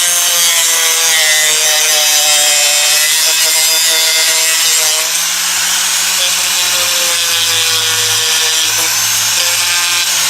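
A power tool running continuously and cutting into a laptop at its screen hinges, its whine wavering up and down in pitch as it bites under load.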